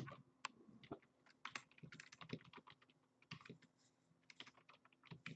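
Faint, irregular clicks and taps of hard plastic graded-card slabs being handled and set down on a stack.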